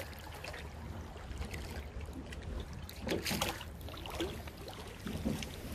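Paddle strokes dipping and splashing beside a small paddled boat on calm water, with water trickling and a louder splash about three seconds in, over a steady low rumble.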